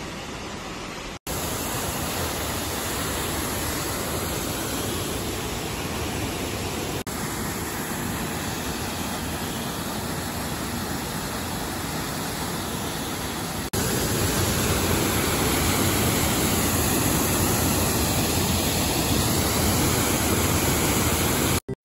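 Waterfall rushing steadily, heard in several recordings joined by abrupt cuts; the last, from about two-thirds of the way through, is louder.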